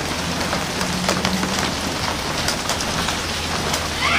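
Steady rain falling, with scattered sharp drop hits close by and a low steady hum underneath.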